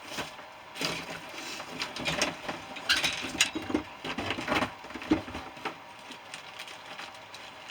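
Irregular clicks, clinks and short scrapes of metal parts and tools being handled while a compressor is dismantled.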